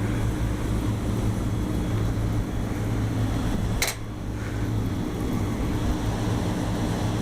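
Rooftop air-conditioning equipment running: a steady low hum with fan noise, and one sharp click about four seconds in.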